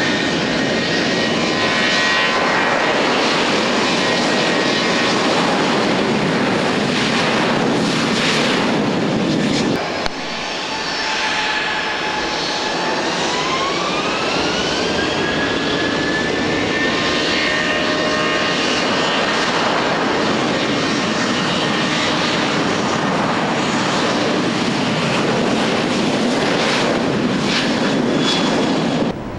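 Boeing 737 jet airliners taking off: loud, steady jet engine noise with a high whine over it. About ten seconds in the sound cuts to a second aircraft, whose engine whine rises in pitch as the engines spool up to takeoff power.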